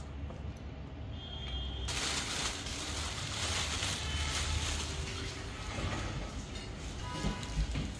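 Thin plastic carrier bag rustling and crinkling as bananas are pulled out of it, over a low steady hum.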